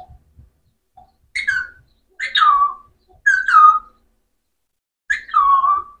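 Alexandrine parakeet calling: four loud calls, each sliding down in pitch, the last one drawn out longest.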